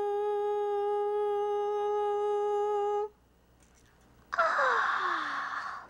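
A voice holding one long, steady 'riiing' note in imitation of an alarm clock ringing, which cuts off suddenly about three seconds in. After a short silence comes a loud, breathy waking yawn whose pitch slides downward.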